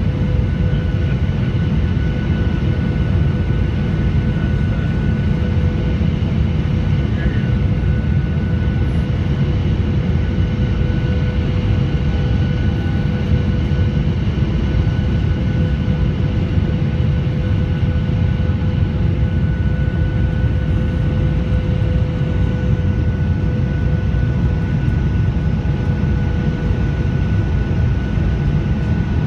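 Steady cabin roar inside a Boeing 737-800 descending on approach, from its CFM56-7B turbofan engines and the rush of air past the fuselage. A deep rumble carries a couple of faint, steady whining tones on top.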